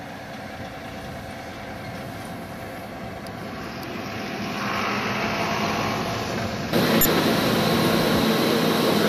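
A steady engine running. About seven seconds in it gives way to a louder, even drone of processing machinery in a dairy's stainless steel tank hall.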